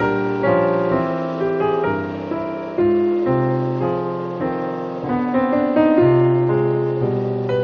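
Piano music: a run of single struck notes, each fading away, in a slow melody.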